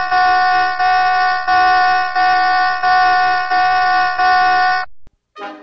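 US Navy general quarters alarm sounding for a drill: a loud, horn-like tone pulsing about three times every two seconds, calling all hands to battle stations. It cuts off about five seconds in, and brass music starts just before the end.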